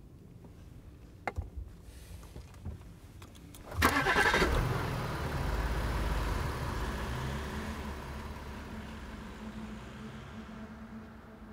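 A few light clicks, then a car engine starts with a sudden burst about four seconds in. It runs steadily and fades as the car drives away.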